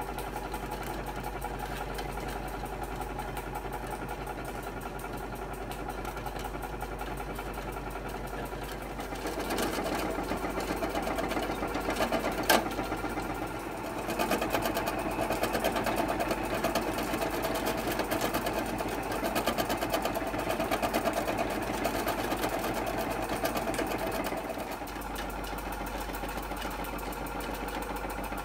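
Tinplate Doll zoo steam-toy accessory running, its turntable of animals going round: a fast, steady mechanical clatter, louder through the middle stretch, with one sharp click about twelve seconds in.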